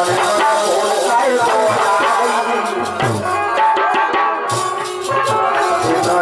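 Live Bundeli folk music: a harmonium plays sustained melodic tones over a steady drum rhythm with jingling small percussion.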